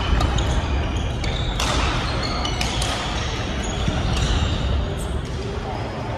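Badminton racquets smacking the shuttlecock during a doubles rally: several sharp hits at irregular intervals, with court shoes squeaking briefly on the wooden floor.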